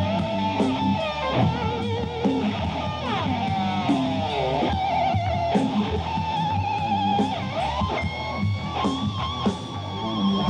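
Heavy metal band playing an instrumental break: a lead electric guitar line with vibrato and bends, sliding down in a long dive about three seconds in, over distorted rhythm guitar, bass and drums.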